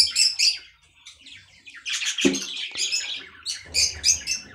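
Budgerigars chattering and chirping in quick high-pitched bursts, with a short knock about two seconds in as the wooden nest box is handled.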